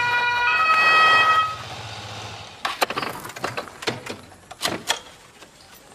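Police two-tone siren (German 'Tatütata') from a police scooter, changing pitch about half a second in and cutting off about a second and a half in. Then a run of sharp knocks and taps.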